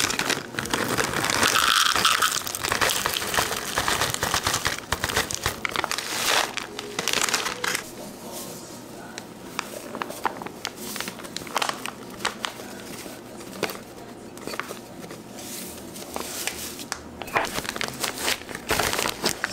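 Baking-prep handling noises: crinkling and rustling, busiest in the first eight seconds or so, then scattered clicks and taps.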